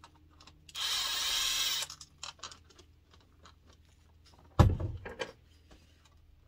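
Kobalt cordless driver spinning for about a second under light load, running a bar nut off a chainsaw's bar stud. Small handling clicks follow, and a sharp thump about four and a half seconds in.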